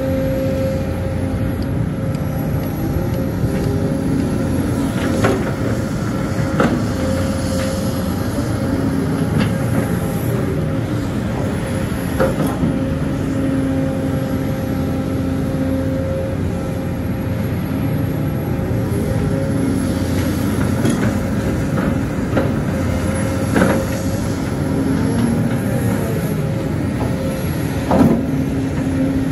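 Sumitomo hydraulic excavator's diesel engine running steadily under load, with a whine that rises and falls in pitch as the machine works. A few sharp knocks come through, the loudest near the end.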